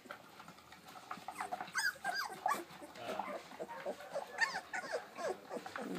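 Seventeen-day-old Labrador retriever puppies whimpering: a scatter of short, high, rising-and-falling squeaks and cries.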